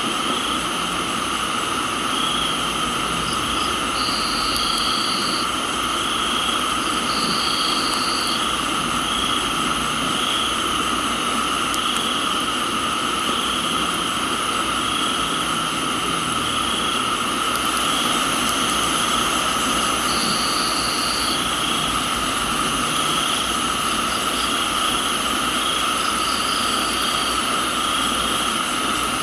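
Crickets and other insects in a tropical garden, trilling steadily at several pitches, with one chirp pulsing about once a second. Four times a higher trill sounds for about a second. Under it runs a steady hiss of rain.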